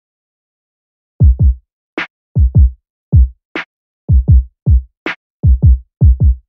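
Silent for about the first second, then an electronic drum-machine beat starts: deep kick drums falling in pitch, mostly in pairs, with a sharp snare hit about every second and a half, and no other instruments.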